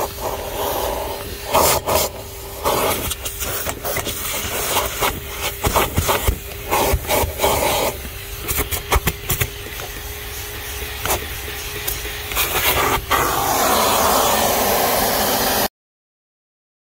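Canister vacuum cleaner running steadily, its nozzle scraping, rubbing and knocking as it is worked over car carpet and around the seat-rail fittings. The sound cuts off abruptly near the end.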